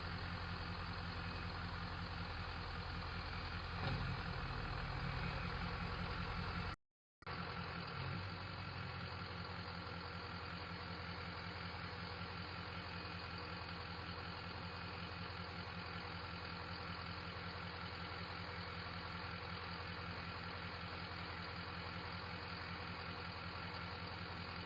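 Ford 6.0 Power Stroke V8 turbo-diesel idling steadily, with an even, unchanging rhythm. The sound drops out completely for a moment about seven seconds in.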